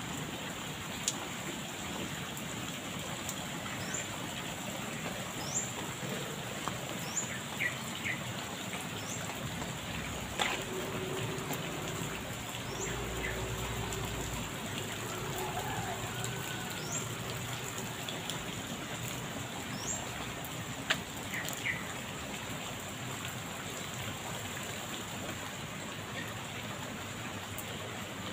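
Steady rain falling on a concrete drainage channel and the water in it, an even hiss throughout. Short high bird chirps come now and then, and a faint low hum runs for a few seconds in the middle.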